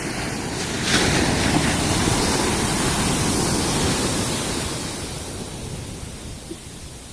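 Ocean surf breaking on a sandy beach: the rush of a wave swells up about a second in, holds for a few seconds, then slowly fades.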